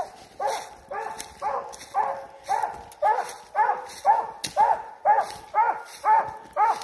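Redbone coonhound barking treed, a steady chop of about two to three barks a second: the sign that she has a raccoon up the tree.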